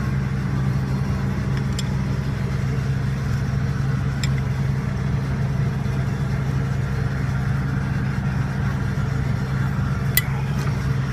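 Heavy logging machine's diesel engine idling steadily, with a few sharp clicks about two seconds in, about four seconds in and near the end.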